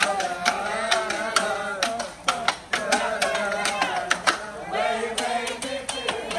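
A group of men's and women's voices from a marching band singing together, with sharp snare drum hits and clapping keeping the beat.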